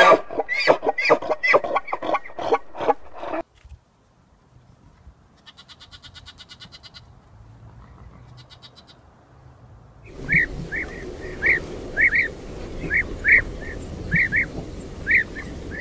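A quick run of short bleating animal calls, about three a second, stops abruptly after roughly three seconds. A faint high trill follows in a quiet stretch. About ten seconds in, a small bird starts chirping repeatedly, roughly twice a second, over steady outdoor hiss.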